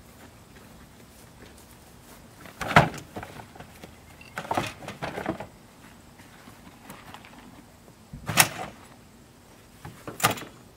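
A few knocks and clunks as containers are set down and loaded onto the back of a utility vehicle: the loudest about three seconds in, a cluster around five seconds, and two more near eight and ten seconds in.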